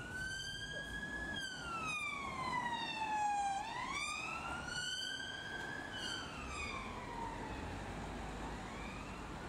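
British Transport Police Vauxhall Astra response car's siren on a slow wail, its pitch rising and falling in long sweeps, peaking about a second in and again about six seconds in, and growing fainter near the end. Steady traffic rumble underneath.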